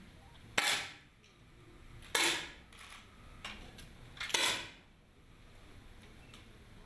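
10 m air rifles firing single competition shots from different firing points: three sharp pops, roughly a second and a half to two seconds apart, each with a short echo.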